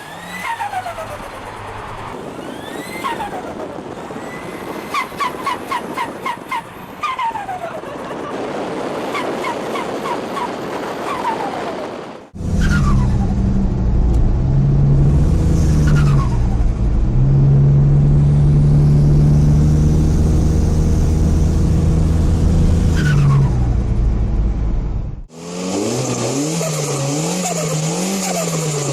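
Turbocharged car engines revved and released: falling turbo whistles on each lift-off, with a rapid fluttering chatter (the "sututu" of compressor surge) in the first part. Then a loud engine held at steady revs before dropping away, and near the end another engine blipped up and down.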